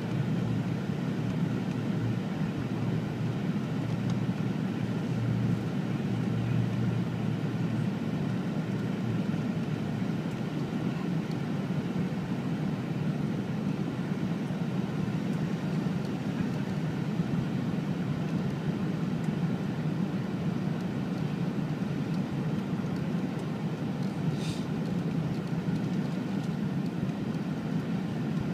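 Steady low cabin rumble inside a Boeing 717-200 on approach, from airflow and its two rear-mounted Rolls-Royce BR715 turbofans.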